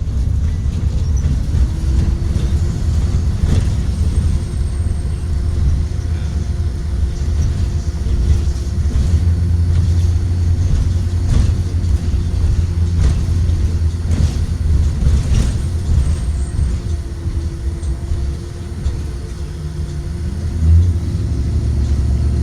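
Ride noise inside a 2023 Blue Bird Vision school bus under way, its Ford 7.3-litre gasoline V8 running with a heavy low rumble and a steady whine, with occasional clicks and rattles. The engine sound drops off about three-quarters of the way through and picks up again near the end.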